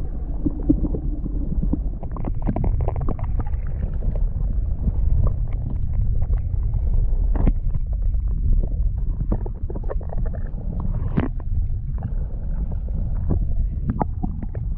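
Low rumble of wind buffeting the microphone on a fishing kayak, with scattered small clicks and knocks throughout.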